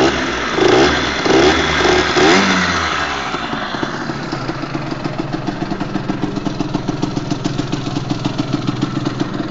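Derbi Senda 50cc two-stroke moped engine, fitted with the stock exhaust and a TurboKit silencer, revved in five quick throttle blips, then dropping back from about three seconds in to a steady idle with a rapid, even putter.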